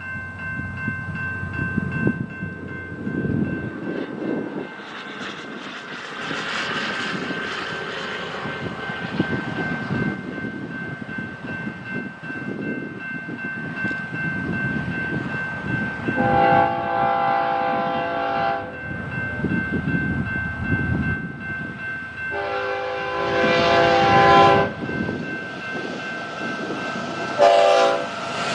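BNSF freight train approaching with a low rumble while its locomotive horn sounds two long blasts and a short one in the second half, a fourth beginning right at the end: the grade-crossing horn pattern.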